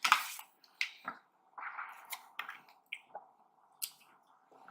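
A person chewing food close to the microphone: irregular wet mouth smacks and sharp clicks, about a dozen over a few seconds.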